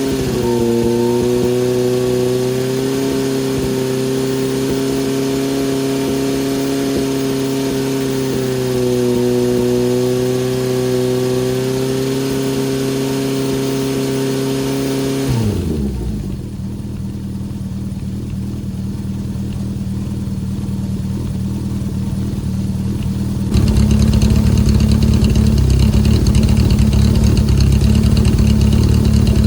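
Honda CB750 Four inline-four engine running through its exhaust silencer, held at a steady raised rpm for about fifteen seconds, then dropping back to idle. About eight seconds later the idle turns suddenly louder and rougher.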